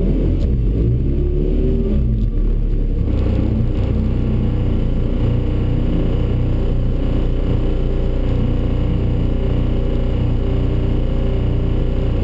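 Tuff truck's engine running at idle inside the cab, with a short blip of revs near the start, then holding a steady note.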